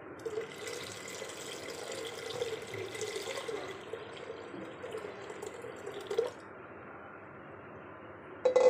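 Water poured from a clay jug into a clay pot of thin churned yogurt batter, splashing steadily for about six seconds and then stopping. A sharp knock near the end.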